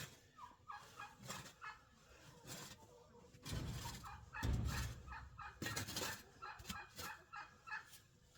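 Poultry calling in short, repeated notes, with a loud low rumble around the middle.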